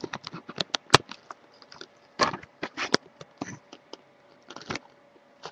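Small taps, clicks and scrapes of little toy items being handled and put into a doll-sized toy oven, with one sharp knock about a second in.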